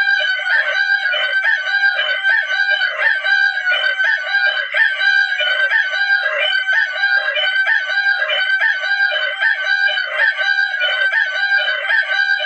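Rooster crowing continuously, one crow running into the next with no pause.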